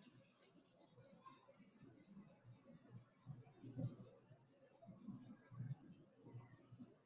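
Felt-tip marker scratching over paper in rapid strokes, its side rubbed across the sheet to fill in a large area, faint, with a few soft low thuds of hand and paper against the desk. The orange marker is starting to run out.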